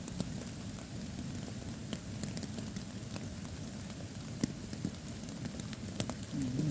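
Steady rain pattering on a tarp shelter, with scattered sharp drips striking close by and a couple of louder drops in the second half.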